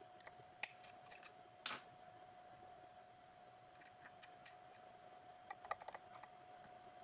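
Faint handling sounds of a cutter being fitted into a CNC key cutting machine. There are scattered light clicks, a brief scrape just under two seconds in, and a quick run of clicks near the end, over a faint steady tone.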